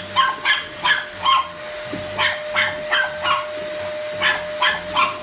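A dog barking in quick runs of sharp barks, about three a second with short pauses between the runs, at a running upright vacuum cleaner whose motor gives a steady whine underneath.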